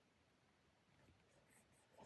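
Near silence in a small room, with faint scratches of writing on paper about one and a half seconds in.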